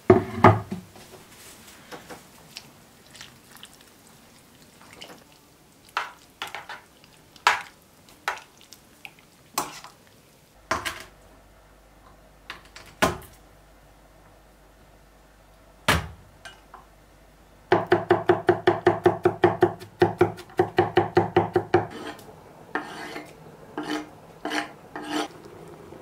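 Kitchen knife cutting garlic on a wooden cutting board, with a knock at the start. Single cuts come at irregular intervals, then about four seconds of rapid, even chopping at roughly four strokes a second begins about 18 seconds in, and a few slower chops follow near the end.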